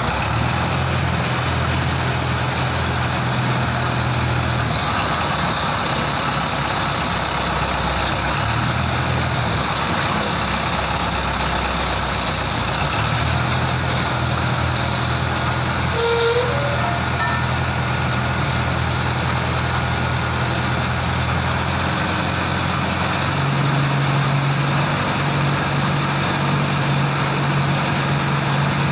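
The engine driving the winch of a small drop-hammer pile rig runs steadily as the hammer weight is hoisted up the mast and lowered. Its low hum strengthens and eases off several times as the load on the winch changes. No hammer blows are heard.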